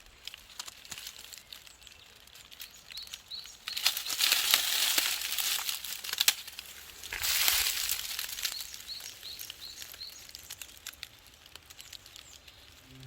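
Forest ambience: two bursts of rustling with scattered crackles and clicks, and a bird giving a run of short, evenly spaced high chirps.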